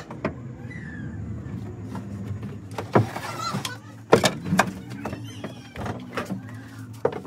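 Plywood boards knocking and clattering as they are handled against a wooden speaker box, with the loudest knocks about three and four seconds in, over a steady low hum.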